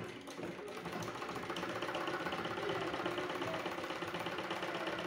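Black Renu domestic sewing machine running steadily, stitching a seam that joins a kameez to its lining.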